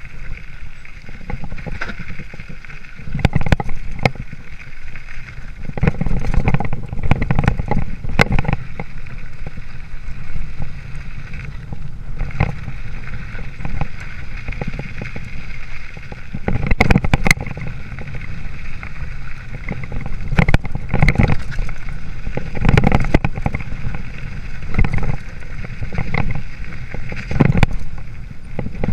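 Hardtail mountain bike (2013 Haro Flightline Sport 26er) rolling down a rough dirt trail, heard from a chest-mounted camera: steady rolling and rushing noise broken by frequent irregular knocks and rattles as the bike hits bumps, with heavier clusters of jolts at several points.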